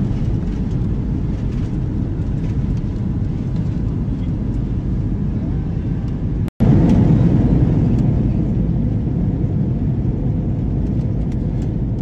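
Steady low rumble of airliner cabin noise from the engines and rushing air. It cuts out for an instant about halfway through, then resumes slightly louder.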